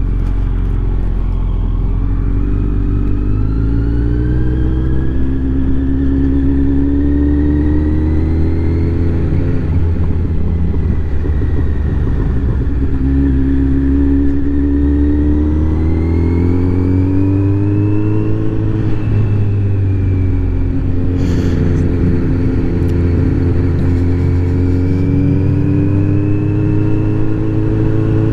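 Kawasaki Z900's inline-four engine through an Akrapovic exhaust, heard from the rider's seat while riding at low speed: the engine note rises, drops back about ten seconds in and again near twenty as the throttle is eased or a gear is changed, then climbs again. Low wind rumble on the microphone runs under it.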